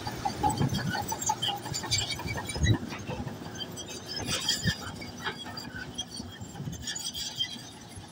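Komatsu bulldozer at work: irregular high metallic squeaks and clinks with a few knocks over a faint low engine hum.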